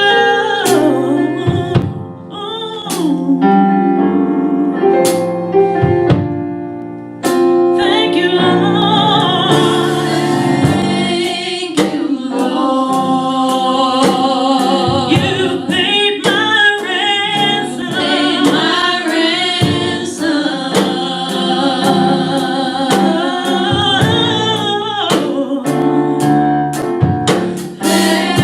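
Gospel vocal group singing with piano and drum accompaniment; the voices swell to a fuller sound about seven seconds in.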